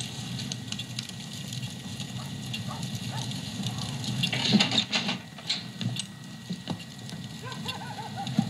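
A television drama's soundtrack picked up off the screen by a phone's microphone: a steady low rumble with scattered clicks and knocks, louder about halfway through, and small squeaks near the end, over a faint steady high whine.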